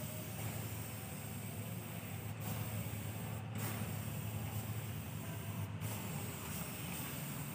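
Hand spray bottle spraying liquid onto a concrete floor to clean up cat droppings, over a steady low hum.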